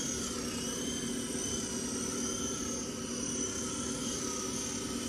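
Small remote-control toy helicopter hovering. Its electric motor and rotor whir steadily, a high whine over a lower hum, wavering slightly in pitch.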